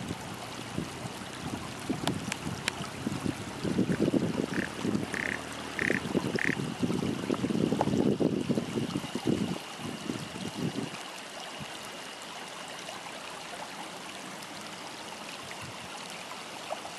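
Frogs croaking in a dense, rapid chorus from the rice paddies, broken off about eleven seconds in and leaving a quieter steady hiss. Around five seconds in, a small bird gives four short high notes in quick succession.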